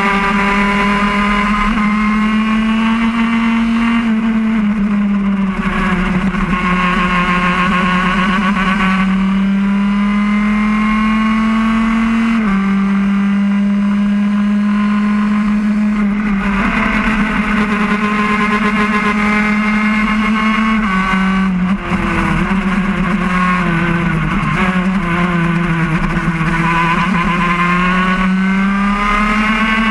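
Racing kart's engine heard onboard at high revs, its pitch climbing gradually on the straights and dropping back several times for corners over about half a minute of lapping.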